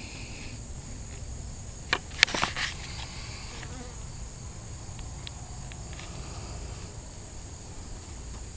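Insects droning steadily and high-pitched. A quick cluster of sharp clicks comes about two seconds in, and a few fainter ticks follow a few seconds later.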